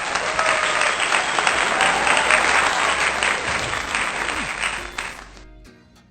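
A loud burst of applause over background music, stopping about five seconds in.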